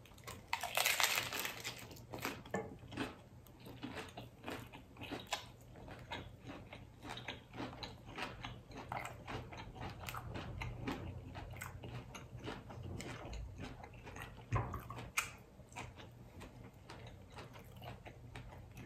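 A person biting into a crunchy hard-shell taco about a second in, then chewing it with steady crackling crunches, and a louder crunch again a little past the middle.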